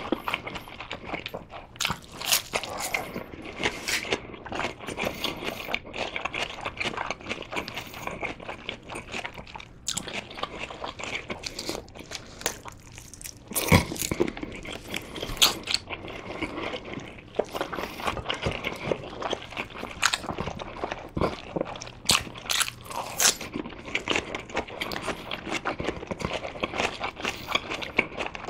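Close-miked chewing and biting of Korean blood sausage (sundae): repeated wet, sticky mouth clicks and bites, with one louder sharp click about halfway through.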